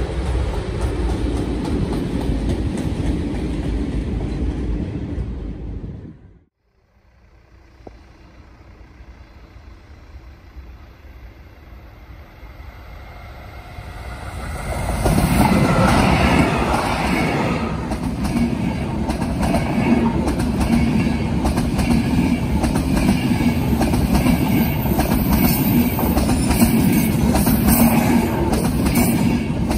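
A freight train of cement hopper wagons rumbling past, cut off suddenly about six seconds in. Then an electric-hauled passenger train approaches, getting louder, and its coaches pass close by with a steady rumble and, near the end, a regular clatter of wheels over rail joints.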